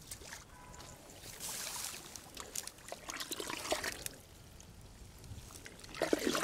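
Shallow water trickling and sloshing in faint, intermittent bouts, with small clicks and a louder bout near the end.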